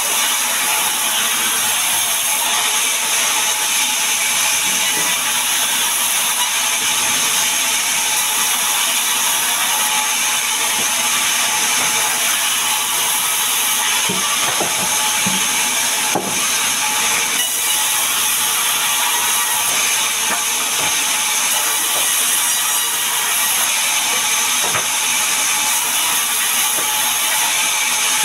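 Sawmill band saw cutting a sengon (albizia) log: a loud, steady hiss of the blade running through the wood. There are a few knocks about halfway through as sawn slabs are handled.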